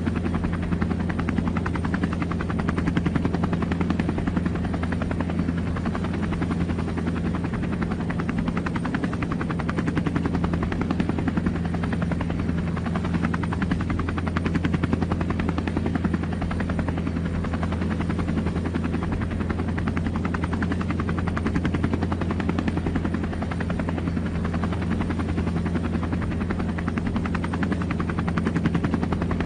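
Air ambulance helicopter running steadily, with a fast, even rotor chop over a constant low hum.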